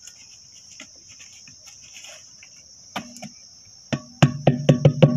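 A plastic bucket of kitchen scraps is emptied into a concrete planter pot: faint rustles and a knock, then the upturned bucket is rapped about six times in quick succession against the pot to shake it empty. A steady high chirring of crickets runs underneath.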